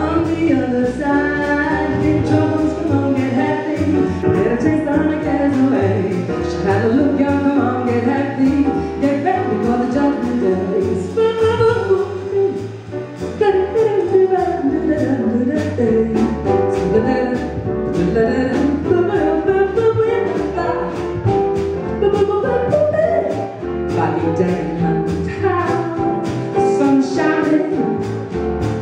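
Live jazz quartet: a woman singing a melody into a microphone, backed by keyboard and drum kit with cymbals.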